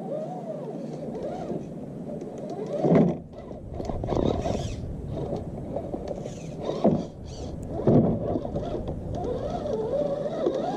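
Redcat Gen8 RC scale crawler's electric motor and geared drivetrain whining, the pitch wandering up and down with the throttle, with four short louder surges as the throttle is pushed.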